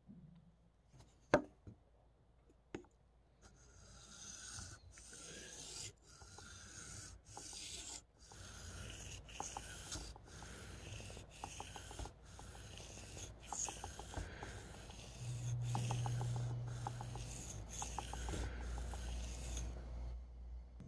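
Steel knife blade drawn freehand across a wet 20/14-micron sharpening stone: a few light clicks, then from a few seconds in a run of repeated scraping strokes, about one to two a second, under a couple of pounds of pressure.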